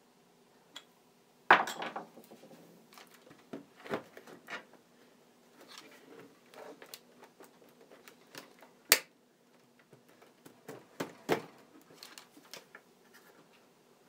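A plastic cordless phone base being handled and fitted against a wooden wall mount, making scattered clicks, knocks and light scrapes. There is a louder knock about a second and a half in and a sharp click near the middle.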